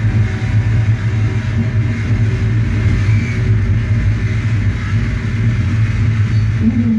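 Post-industrial dark-ambient electronics played live: a loud, heavy low drone with a hiss of grinding noise over it, churning on without a beat.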